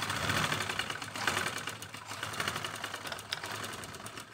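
Domestic sewing machine driven by an add-on electric motor, stitching rapidly in a fast, even run of needle strokes while elastic is sewn onto a waistband. It stops near the end.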